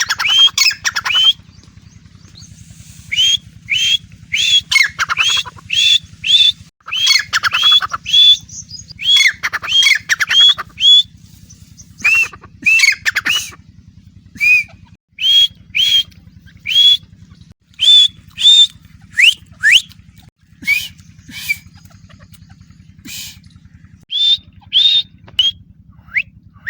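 Francolin (teetar) calling: a long series of short, shrill, upward-sweeping notes, given in quick runs of a few with short pauses between. A faint steady low hum runs underneath.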